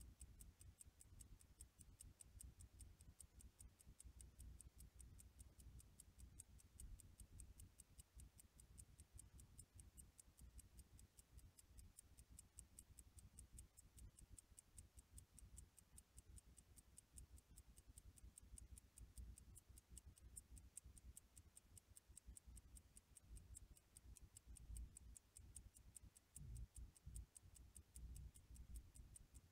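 Chistopol caliber 2234 mechanical watch movement ticking faintly at 18,000 beats per hour, five even ticks a second, with a low rumble underneath. The movement is dirty and long unserviced.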